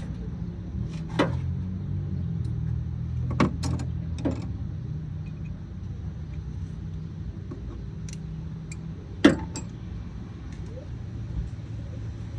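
Sharp metal clicks and knocks of a socket, extension and ratchet against the engine while spark plugs are being worked loose. There are four of them, the loudest about nine seconds in, over a steady low rumble.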